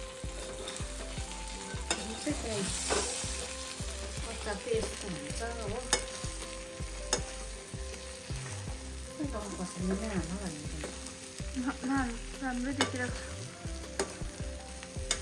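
Metal spatula stirring and scraping thick buffalo-meat achar around a steel wok while it sizzles, with repeated sharp clicks of the spatula against the pan.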